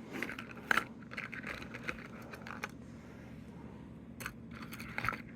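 A Lego minifigure box and its small parts being handled: scratchy rustling and scraping for the first few seconds, then a few sharp clicks near the end.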